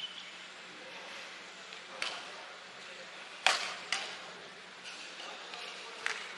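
Badminton rackets striking a shuttlecock in a rally: a handful of sharp hits a second or two apart, the loudest about three and a half seconds in.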